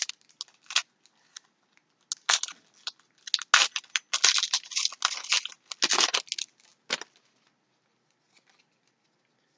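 Foil Magic: The Gathering booster pack wrapper crinkling and tearing open: a few sharp crackles, then a dense run of crackling in the middle that stops about two seconds before the end.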